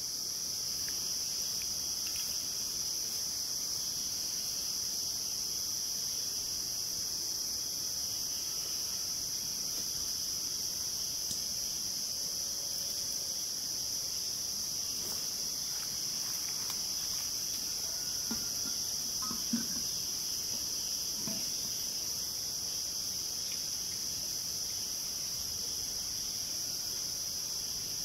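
A dense chorus of tropical rainforest insects chirring, a continuous high-pitched drone that never lets up. A faint click sounds about two-thirds of the way through.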